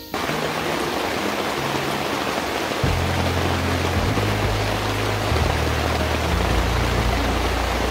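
Steady heavy rain, a dense even hiss, starting abruptly, over background music whose low bass notes grow stronger about three seconds in.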